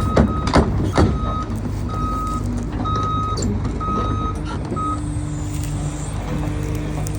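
Excavator's diesel engine running steadily while its backup/travel alarm beeps about once a second, stopping about five seconds in. A few sharp clanks come in the first second.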